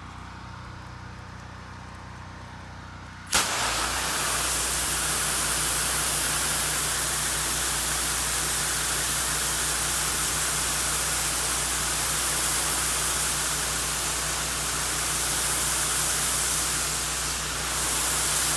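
Pressure washer running with a low hum, then about three seconds in the wand opens and a loud, steady hiss of high-pressure water spray starts, with the machine's low hum beneath it. The spray is carrying soap solution onto the siding.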